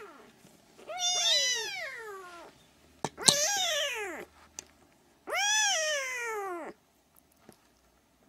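A young Siamese kitten mewing, three long high cries, each rising and then falling away in pitch. A sharp click sounds during the second cry.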